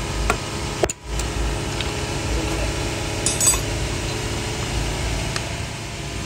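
Metal tools clinking and tapping on motorcycle parts a few times, with a short cluster of ringing clinks midway, over a steady low rumble.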